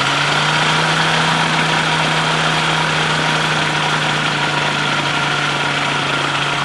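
A weight-shift microlight trike's engine and propeller running steadily at low power, heard close up from the open seat; the engine note steps up a little right at the start.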